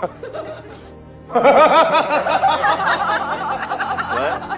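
Background music with a run of rapid, repeated laughter starting about a second and a half in.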